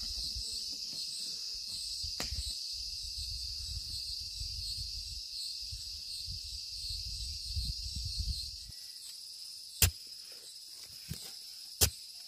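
Steady, high-pitched chirring of insects in a rural background, under a low rumble that stops about nine seconds in. Two sharp knocks near the end are the loudest sounds.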